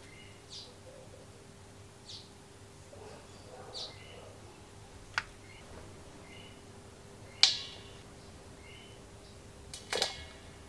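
Metal toaster parts being set down in a stainless steel bowl of cleaning liquid: a few faint ticks and small splashes, a sharp tap about five seconds in, and two ringing clanks against the bowl, about seven and ten seconds in.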